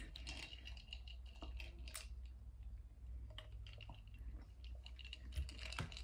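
Faint, scattered light clicks and taps at irregular times over quiet room tone with a low hum.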